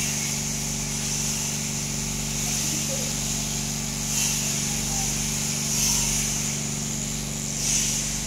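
Electric sheep-shearing machines running steadily: overhead motors driving the handpieces through hanging drive shafts, a steady hum with a high buzzing hiss from the cutters that swells every second or two as they pass through the fleece.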